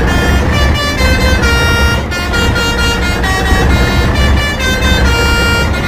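Indonesian 'telolet' multi-tone bus horn playing a tune of short stepped notes, one after another, over a steady low rumble.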